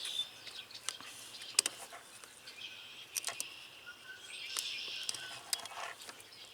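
Faint outdoor background with high chirping calls that come and go, and a few small sharp clicks.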